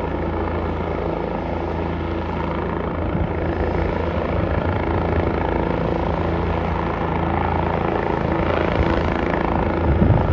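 Helicopter running steadily: a continuous low drone with a rushing noise above it, growing a little louder about three seconds in.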